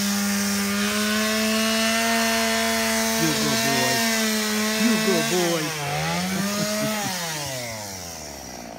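Chainsaw running steadily at high speed. Its pitch dips and recovers once about six seconds in, then falls away as the saw winds down and fades near the end.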